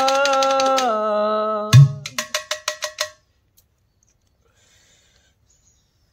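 A man's voice holds a sung note over rapid tapping on a stainless steel pot played as a drum, and the voice stops about a second in. A loud, deep hit on the pot follows, then a quick run of about six ringing metallic strikes that fade away about three seconds in.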